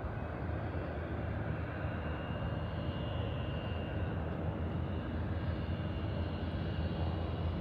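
Light propeller floatplane's piston engine running steadily, a continuous low drone with a faint high whine above it.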